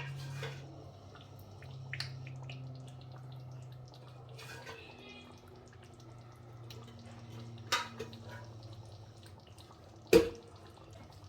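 Chicken stock being poured into a pot of stew, a running, dripping liquid sound over a steady low hum, with a few sharp knocks; the loudest knock comes near the end.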